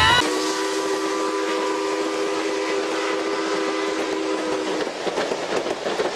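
Steam train chime whistle blowing one long, steady chord over the hiss of steam; the whistle stops about five seconds in and the hiss carries on.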